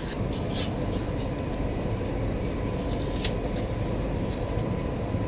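Passenger train running, a steady low rumble heard from inside the carriage, with a few faint short clicks over it.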